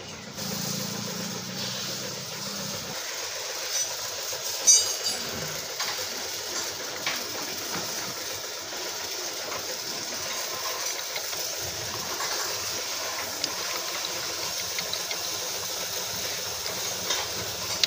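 Light metal clinks and clicks of steel clutch plates being handled and slid onto a motorcycle clutch hub by hand, the sharpest clink with a short ring about five seconds in, over a steady background hiss with a low hum in the first few seconds.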